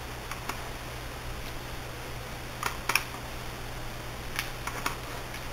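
Small clicks and taps of a screwdriver and plastic laptop screen parts being handled, coming in short clusters every couple of seconds over a steady low hum.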